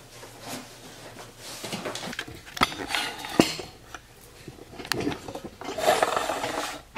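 Household things being cleared out of a closet and a cube storage shelf being set into it: clattering and handling noise with a few sharp knocks, about two and a half, three and a half and five seconds in, then scraping and rustling near the end.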